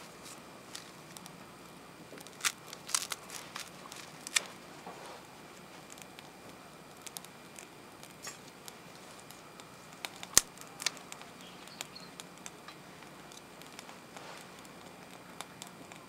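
Small split kindling crackling and popping as it catches inside a stainless-steel secondary-combustion (wood-gas) camp stove. Scattered sharp pops, a quick cluster of them two to four seconds in and one loud snap about ten seconds in.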